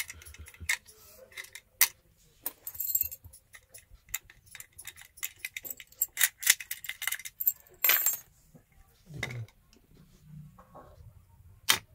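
Scattered metallic clicks and clinks of a Godrej padlock and its keys being handled, locked and set down on a concrete floor.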